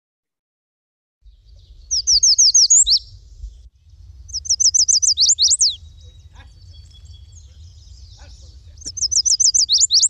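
Recorded song of a chestnut-sided warbler: three bursts of quick, high, down-slurred notes, each ending in a few longer, emphatic slurs, over a faint low rumble.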